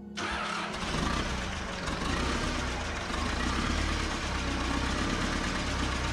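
Freshly overhauled VMZ T-28 tractor diesel engine starting suddenly, picking up about a second in and settling into a steady run.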